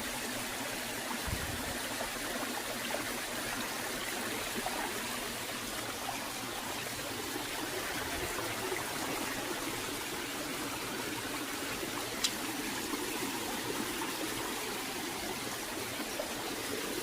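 Steady rushing of flowing water from a nearby waterfall or stream, with one brief sharp tick about twelve seconds in.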